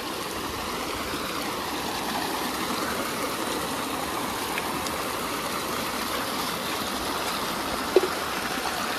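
Water gushing from a plastic pipe and splashing into a rocky stream: a steady rush. A single short knock sounds near the end.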